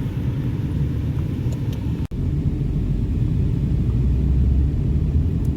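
Steady low rumble, broken by a brief dropout about two seconds in.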